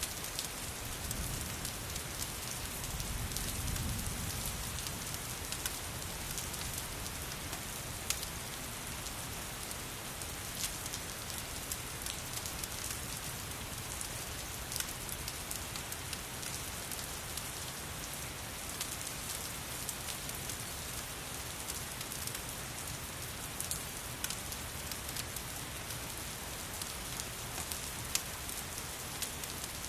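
Steady rain falling, mixed with a crackling fireplace whose sharp pops come at irregular moments. A low rumble swells briefly near the start.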